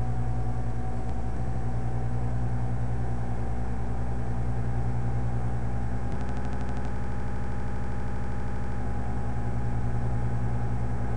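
Steady low mechanical hum of background noise, unchanging throughout, with a brief buzzy patch from about six to nine seconds in.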